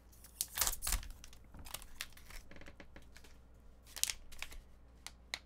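Metallic foil pouch crinkling and crackling as it is pulled open and crumpled by hand. The crackles come in irregular bunches, loudest in the first second, with a sharp single crackle about four seconds in.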